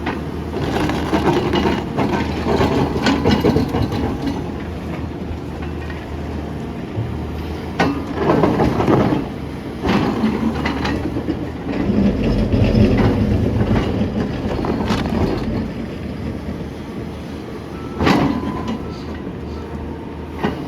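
SANY SY500H hydraulic excavator working with a ripper: its diesel engine runs steadily and grows heavier under load about twelve seconds in, with repeated sharp clanks and scraping of steel against the ground.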